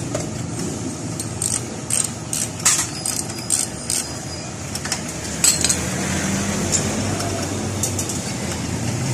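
Small metal clinks and ticks of a washer and nut being fitted by hand onto a motorcycle's shock mount bolt, scattered through the first five seconds or so, over a steady low background rumble.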